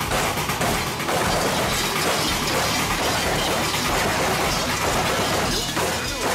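Dense, continuous metallic jangling and clattering, typical of the large bells worn by Krampus figures as they dance, with music faintly underneath.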